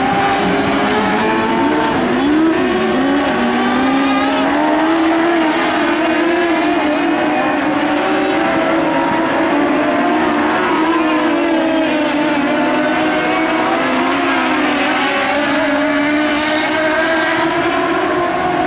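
Several Mod Lite dirt-track race cars running together at racing speed, their engines overlapping and rising and falling in pitch as the cars lift and accelerate through the turns.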